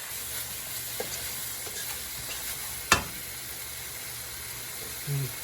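Chicken 65 sauce of chili sauce, soy sauce and vinegar sizzling steadily in a hot pan while it is stirred, with one sharp clink about three seconds in.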